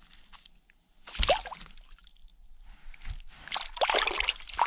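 Water splashing and sloshing in an ice-fishing hole as a hand pushes a small brook trout back down into it: one splash about a second in, then several more near the end.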